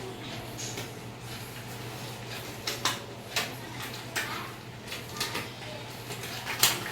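A handful of short knocks and clicks, like objects being handled and set down, over a steady low hum.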